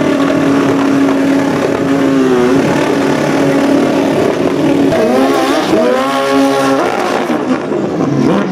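Drag-racing sport motorcycle's engine held at high revs during a burnout, a steady high engine note that drops off about two and a half seconds in. From about five seconds in the engine revs up and down in rising sweeps as the bike pulls away.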